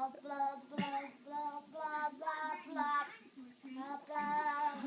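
A baby's voice, a steady drawn-out vocalizing chopped into short wobbling syllables about three times a second as a dog licks the baby's mouth.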